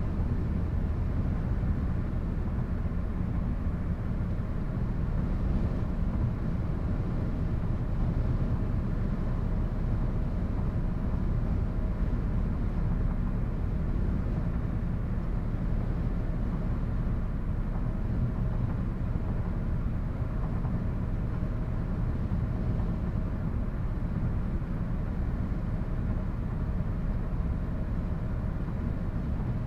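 City ambience: a steady low rumble of distant traffic, even throughout, with no single event standing out.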